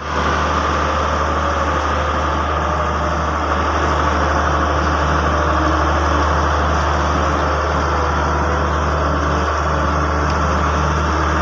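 Hitachi EX100WD wheeled excavator's diesel engine running steadily with a constant low hum, working under load as it tows a truck.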